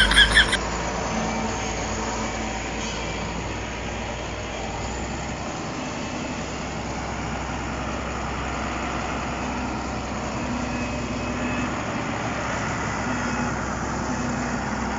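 Diesel engine of a Shantui SD16 crawler bulldozer running steadily as the dozer pushes against a large uprooted root ball.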